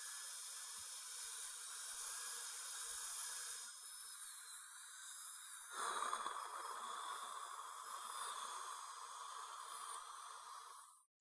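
High-speed air-turbine dental handpiece running a fine diamond bur with water spray: a thin high whine over steady hiss as it trims excess resin cement from freshly bonded lower veneers. It gets louder about six seconds in and stops shortly before the end.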